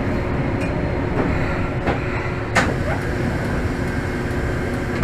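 Tokyo Toden Arakawa Line streetcar moving slowly, heard from inside the driver's cab: a steady low rumble of wheels and running gear with a faint steady hum. A few sharp clicks come through, the loudest about two and a half seconds in.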